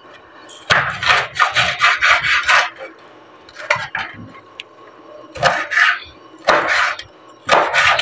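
Chef's knife slicing a green bell pepper into strips, each cut knocking on a wooden cutting board: a quick run of about ten cuts in the first three seconds, then four short groups of cuts with pauses between.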